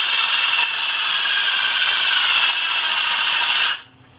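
Cordless drill's motor running steadily at speed on power from a laptop charger cable, then stopping abruptly near the end.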